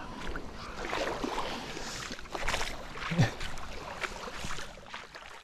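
Small waves washing on a lake beach, with wind on the microphone and a few light knocks, one low thump about three seconds in. The sound cuts off suddenly at the end.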